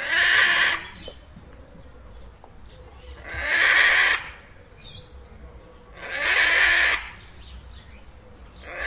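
Macaw giving harsh, raspy squawks, about one every three seconds, each just under a second long, with faint higher calls between.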